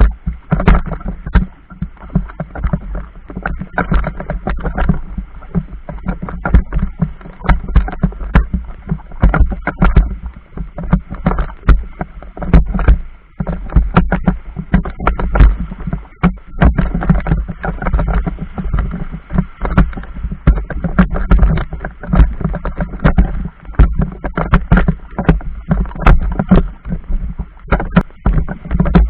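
Choppy river water slapping and splashing in quick, irregular knocks over a steady low rumble.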